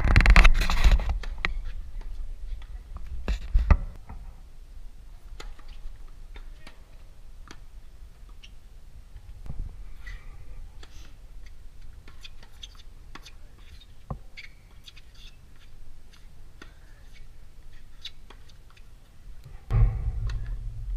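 Tennis rally on a hard court heard from behind the fence: scattered sharp pops of racket striking ball and ball bouncing. A loud rushing noise fills the first second, and a low rumble comes in near the end.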